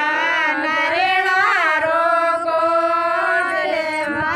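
A high voice singing a song in long, held notes that bend in pitch, with music behind it.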